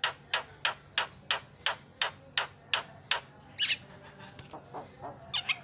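Javan myna giving a rapid run of short, sharp call notes, about three a second for some three seconds. A harsh rasping note follows, then a few softer notes.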